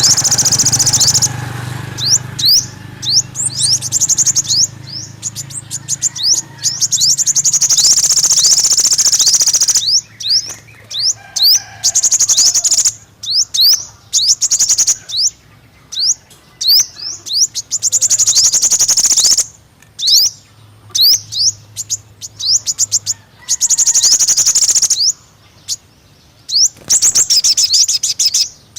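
Five-colour sunbird song: repeated bursts of very high, rapid trills and quick falling chip notes. A low steady hum lies underneath for most of it.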